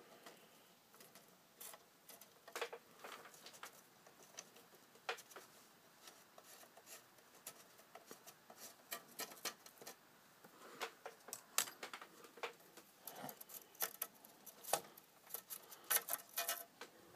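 Faint, scattered small clicks and taps of hands working around the bolts and nuts of a 3D printer's heatbed mount, sparse at first and coming more often after about ten seconds.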